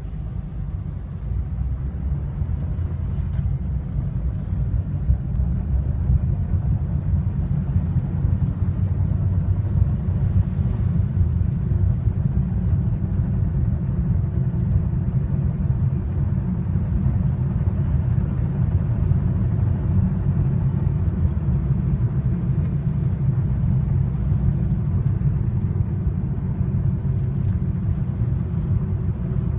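Mitsubishi Lancer IX 1.6 running with a steady low rumble and a few faint scattered clicks, recorded to catch an unexplained knock that shows up under load.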